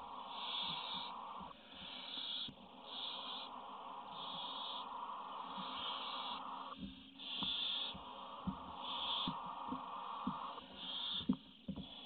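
Barn owl chicks giving their hissing, snore-like begging calls: short high hisses about once a second over a longer, lower hiss that breaks off briefly a few times. A few soft knocks and scratches of movement on the nest floor, the loudest near the end.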